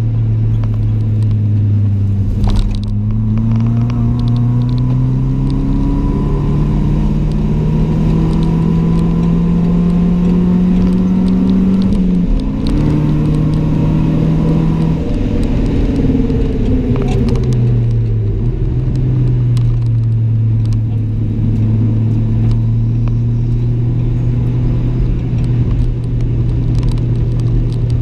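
Mitsubishi Colt CZT's turbocharged 1.5-litre four-cylinder engine heard from inside the cabin under way. The engine note climbs steadily for about twelve seconds, drops sharply with a gear change, falls again a few seconds later, and then runs at a steady pitch.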